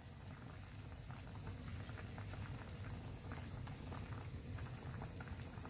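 Pork kimchi stew simmering in a stainless steel pot, a faint steady bubbling with many small scattered pops.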